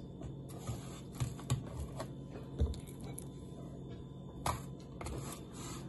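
Raw duck legs being laid by hand into a plastic food container on a bed of coarse sea salt: scattered light clicks and taps of meat, salt grains and plastic, a louder tap about four and a half seconds in.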